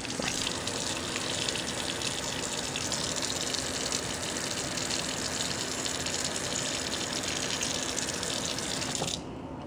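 Bathroom sink faucet running a steady stream of water into the basin, stopping suddenly near the end.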